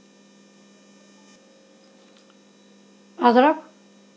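A steady electrical hum at a low level, with one word spoken a little over three seconds in.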